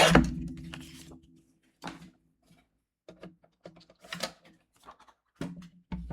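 Paper and tools being handled on a craft table: a loud thump at the start with a short low ring after it, then scattered light clicks and taps.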